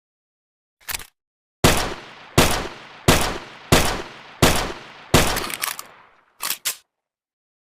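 Makeshift sound effect imitating an M1911 pistol: a click, then six sharp gunshot-like bangs about 0.7 seconds apart, each trailing off, then two quick clicks.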